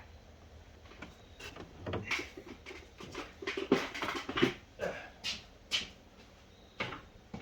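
Hand handling noise: a series of short knocks, scrapes and rubs as a stuck part is tugged and worked free.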